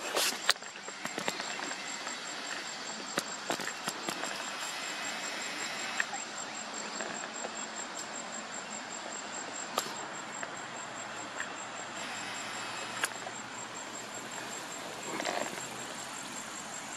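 An insect calling in a high, evenly pulsed note over a steady outdoor hiss, with a few sharp clicks now and then.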